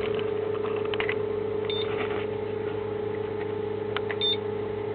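Small 12 V coolant pumps of a homemade thermoelectric heat pump running with a steady, even hum, with a few faint clicks.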